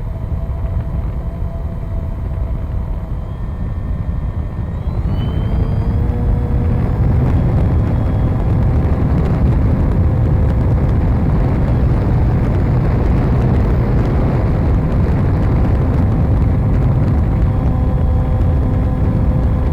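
Wind rushing over an onboard camera on a 3D-printed RC model plane, with the plane's motor and propeller whining over it. About five seconds in the whine rises in pitch as the throttle goes up, and the whole sound gets louder.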